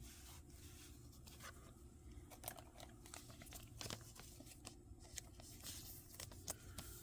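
Faint handling of Pokémon trading cards and foil pack wrappers: scattered light clicks and crinkles over a low room hum.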